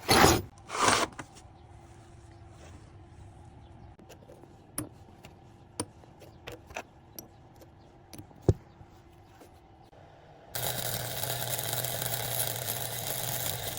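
Two loud clanks of metal at the start, then scattered light taps and clinks of tools; about ten seconds in a steady machine noise with a low hum starts up and keeps going.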